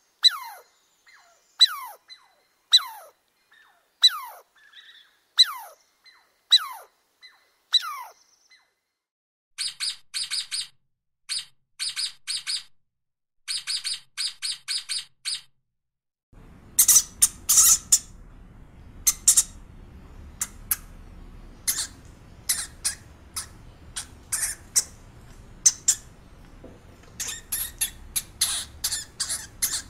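A sequence of three animal sounds. First a squirrel gives a series of sharp, downward-sliding chirping calls, about one a second, for some eight seconds. Then come sea otters' rapid pulsed squeaking chatter, and last a pet rat's short sharp squeaks and clicks over a steady hiss.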